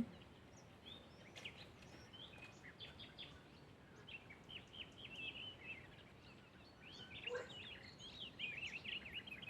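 Faint birdsong: many quick chirps and short trilled phrases from small songbirds, sparse at first and busier in the second half, over a soft outdoor hiss.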